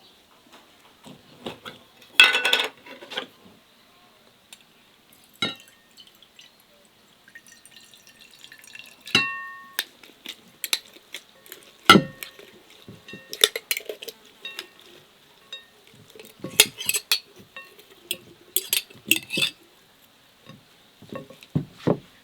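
Kitchen clatter: dishes and utensils knocking and clinking at irregular intervals, with one short ringing clink about nine seconds in.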